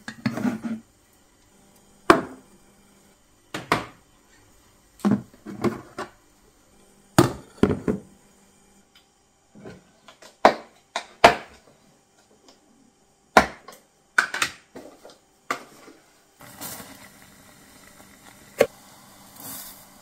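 Kitchen handling sounds: jars, tins and lids picked up, opened and set down, with a steel pot and spoon. About a dozen separate knocks and clicks, then a steady hiss under the last few seconds.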